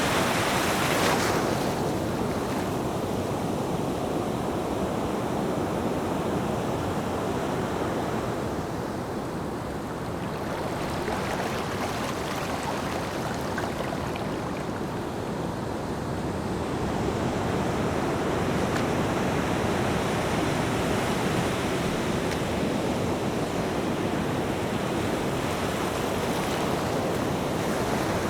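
Ocean surf washing in as a continuous rush of wave noise, with one loud surge of breaking water in the first couple of seconds, a quieter lull in the middle, and another swell building in the second half.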